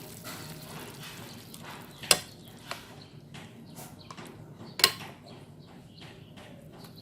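Ladle and dishes clinking as soup is dished out: two sharp knocks, about two seconds in and near five seconds in, the second the louder, with lighter clatter between.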